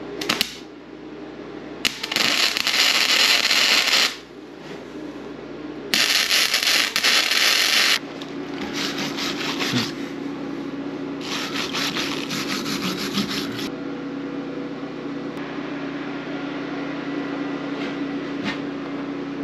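MIG welder laying two short beads on a steel spindle and pipe, each a few seconds of loud steady crackling hiss. It is followed by a steel wire brush scrubbing the fresh weld in rapid strokes, over a steady low hum.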